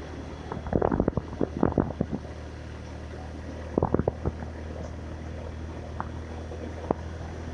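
A vehicle's engine running steadily as it drives, with a low hum throughout. Two bursts of clicks and knocks come about a second in and about four seconds in, and single clicks come near the end.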